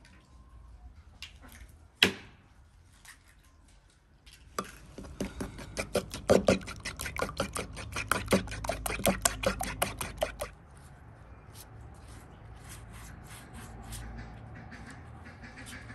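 A single sharp knock about two seconds in, then a fork beating egg yolk in a wooden bowl: quick, rapid clicks of metal against wood for about six seconds. From about ten seconds in, the softer rubbing of a silicone pastry brush spreading the yolk over raw dough.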